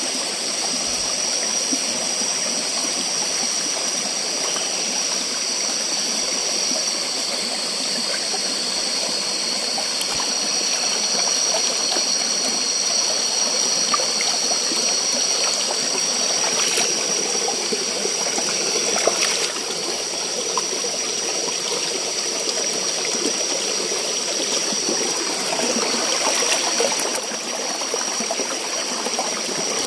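Stream water running and splashing close by, with a few brief louder splashes. Underneath is a steady high drone of night insects.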